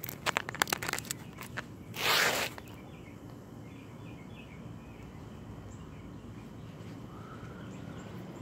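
Scissors cutting into a lithium-ion battery's casing: a run of sharp snips and clicks in the first second and a half, then one short, loud crunching cut about two seconds in. After that only faint outdoor background.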